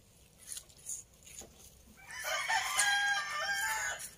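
A rooster crowing once: a single loud call of about two seconds, starting about halfway through, with its pitch stepping up and down.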